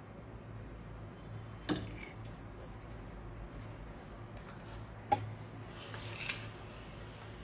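A few short clinks and knocks of dishes being set down on a stone countertop: one about a second and a half in, a sharper one about five seconds in, and a lighter one soon after, over a steady low hum.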